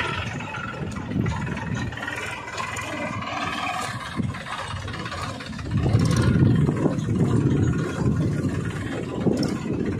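Small engine of a homemade mini tractor running as it tows a loaded trolley, getting louder for a couple of seconds about six seconds in.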